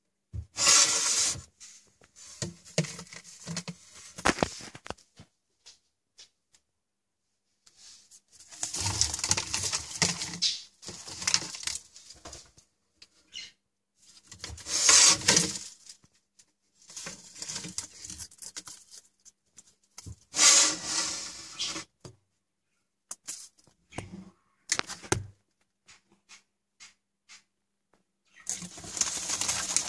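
Rustling and scratching on the newspaper lining of a bearded dragon vivarium, in several bursts of a second or two with quiet gaps between, plus scattered clicks.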